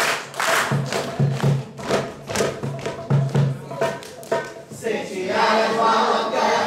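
A group of children clapping in rhythm while a man's voice chants a scout song. About five seconds in, the clapping gives way to the children singing together.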